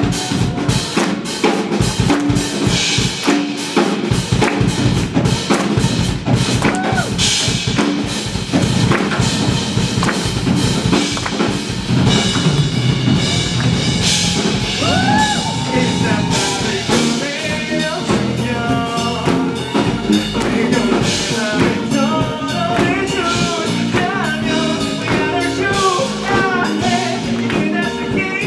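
Live band playing an instrumental passage, drum kit to the fore, with a lead line bending in pitch through the second half.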